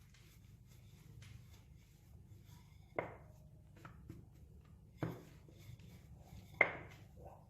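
Three sharp knocks on a kitchen work surface, the first about three seconds in and the others roughly two seconds apart, with light rustling between them, made while the cook works bread dough.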